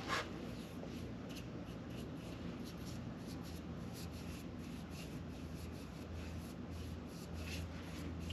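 A small paint brush working caliper paint onto a brake caliper: faint, quick scratchy brush strokes over a steady low hum, with a brief louder knock at the start.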